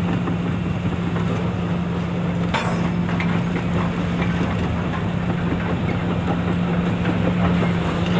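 Diesel engine of a Hitachi EX355 demolition excavator running at a steady speed, with scattered light metallic clanks and one sharper knock about two and a half seconds in.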